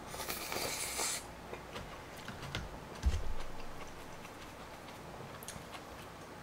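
A man slurps up a mouthful of noodles from spicy maratang broth for about the first second, then chews with his mouth closed, with small wet clicks and one low thump about three seconds in.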